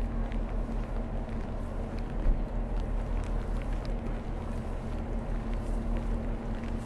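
A heavy engine running steadily with a constant low hum. A single short knock comes about two seconds in.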